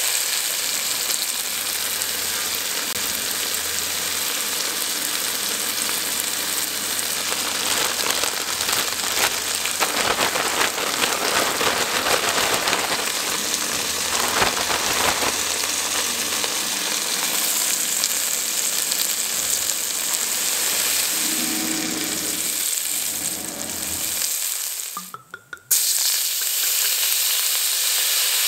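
Beef cubes searing in oil in an enamelled cast-iron Dutch oven: a steady sizzle. Near the end it breaks off briefly, then a hiss as red wine is poured into the hot pan to deglaze the browned bits.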